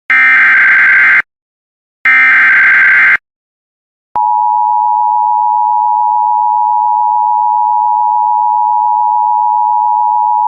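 Emergency Alert System SAME header: two harsh one-second digital data bursts about a second apart, the end of its three-burst sequence. About four seconds in, a steady EAS attention tone begins and holds unbroken.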